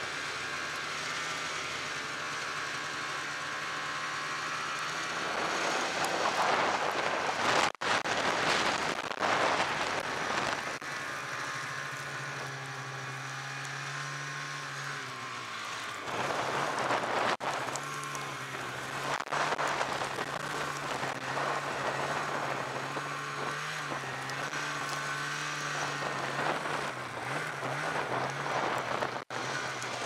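Snowmobile engine running under way through snow with a steady hum that swells and eases with the throttle, and louder stretches of rushing noise as it speeds up.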